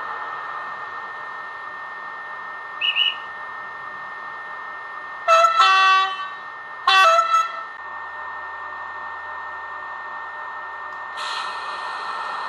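Sound decoder of a Roco HO-scale model of an SNCF BB 22200-class electric locomotive, played through the model's small onboard speaker: a steady hiss of the standing locomotive's simulated ventilation, a short beep about three seconds in, then two blasts of the horn, the first slightly longer, a second apart. Near the end a louder hiss comes in.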